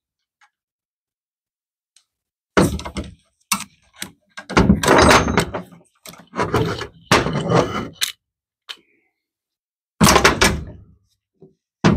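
Loud thumps and scuffs, coming in clusters from about two and a half seconds in: a loose clip-on microphone being knocked and handled.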